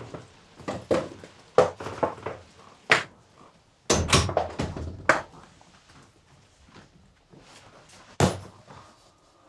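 A metal-framed sliding glass door being opened and shut and a rolling suitcase being brought in. It makes a series of knocks and thuds, with a sharp thud near the end.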